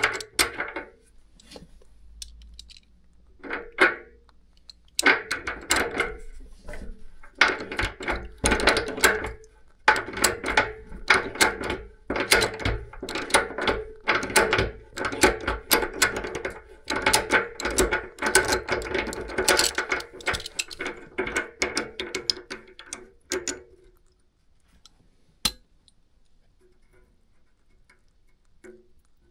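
A metal tool on a radiator valve tail, turned to wind the tail out, clicks and grates in quick runs with short pauses. It stops a few seconds before the end, followed by a single click.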